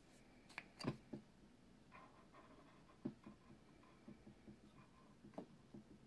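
Faint handling sounds of a camera lens: small clicks and taps as its plastic rear lens cap is twisted off. The sharpest clicks come about a second in, with more small ticks later.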